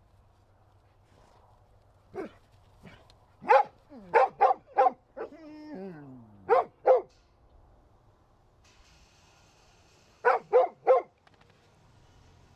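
Dog barking in short, sharp barks that come in clusters: one about two seconds in, a quick run of four around four to five seconds, a pair near seven seconds and three more near the end. Between them there is a drawn-out whine that falls in pitch.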